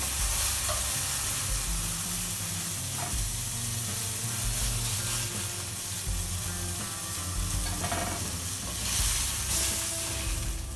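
Steady sizzling of chicken patties shallow-frying in a little hot oil in a pan.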